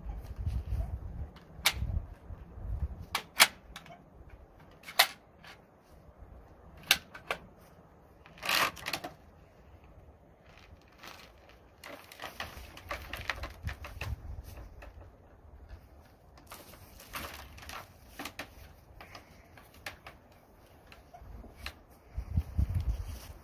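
Scattered sharp clicks and knocks of a bolt-action .270 hunting rifle being handled and readied at a shooting bench, with a short rattle about eight seconds in and low rumbles near the start and end.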